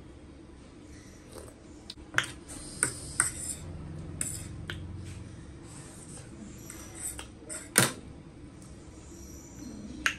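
A metal fork clinking and scraping on a plate of noodles, with a handful of sharp clinks (the loudest near eight seconds in) and soft chewing between them.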